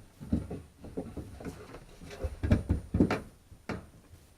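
Irregular knocks and clunks as copper pipe and fittings are handled and pushed together, loudest about two and a half to three seconds in.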